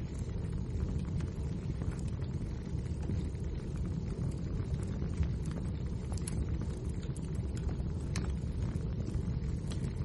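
Wood fire burning in a fireplace: a steady low rumble with frequent sharp crackles and pops from the burning logs.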